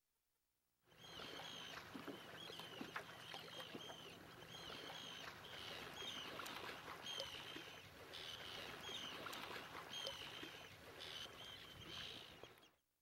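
Birds calling overhead: a long run of short, high, hooked calls, about two a second, over a faint steady hiss, starting about a second in and stopping just before the end.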